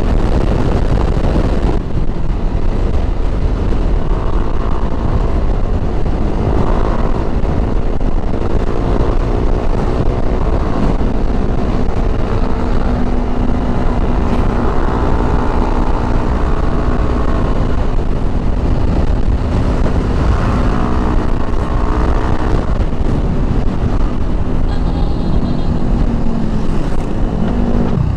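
Motorcycle engine running on the road, its pitch slowly rising and falling with speed, over a heavy low rumble of wind and road noise on the microphone.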